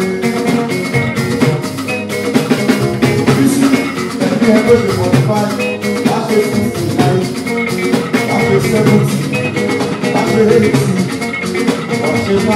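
Live band playing: electric guitars and bass guitar over drums and percussion, with a steady beat.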